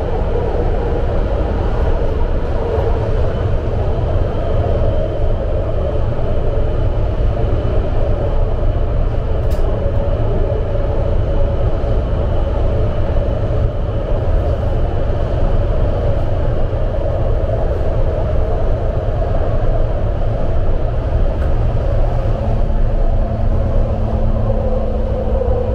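BART Legacy Fleet train car heard from inside the cabin while running: a loud, steady rumble of wheels on rail with a droning band in the middle. A steady low hum joins near the end.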